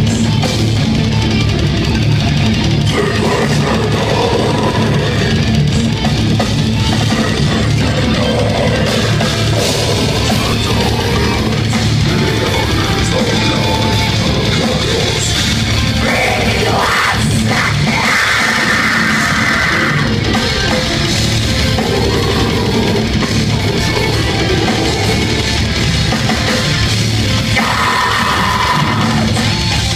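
Death metal band playing live: heavily distorted electric guitars, bass and a pounding drum kit, loud and dense throughout. A high held tone rides over the top for a few seconds past the middle and again near the end.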